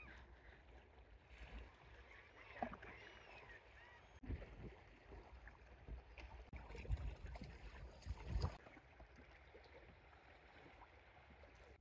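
Faint water lapping around a small inflatable boat, with a few soft knocks and bumps.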